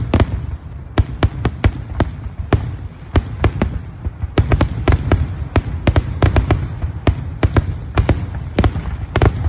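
Fireworks display: many sharp bangs in rapid, irregular succession, several a second, over a continuous low rumble.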